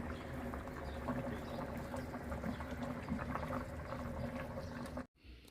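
A steady liquid sound from the rfissa's hot broth, with small ticks through it; it cuts off abruptly about five seconds in.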